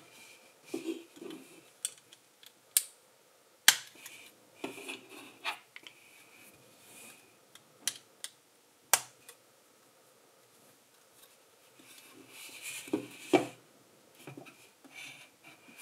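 LEGO plastic bricks being handled and pressed together: several sharp clicks with soft rubbing and rattling of pieces between them, and a busier spell of handling near the end.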